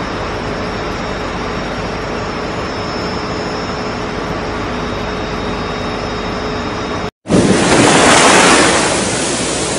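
A steady machinery hum with faint steady tones, cut off abruptly about seven seconds in. After a split second of silence comes the rush of an ocean wave surging up a sandy beach, loudest about a second later and then easing.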